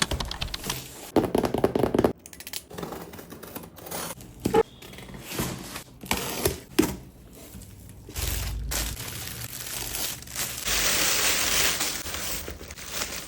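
Packaging being crinkled and torn open as new bags are unwrapped: irregular rustling with sharp crackles and clicks, turning into a longer, steady rustle near the end.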